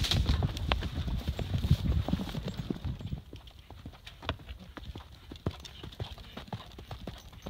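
Horse hooves clip-clopping over a loud low rumble. About three seconds in, the sound drops to quieter, spaced hoofbeats of a horse cantering across a grass course.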